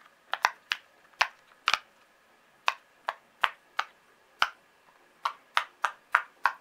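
Silicone push-pop fidget toy having its bubbles pressed through one after another by fingers: a quick, uneven run of sharp pops, about sixteen in all.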